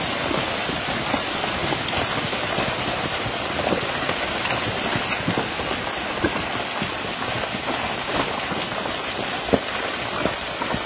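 Steady rain hiss, dotted with many short sharp ticks.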